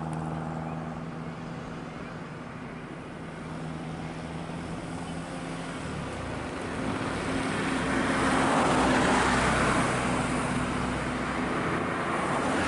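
Road traffic on a roadside: a steady noise of passing vehicles, with one vehicle growing louder from about seven seconds in and passing close around nine seconds.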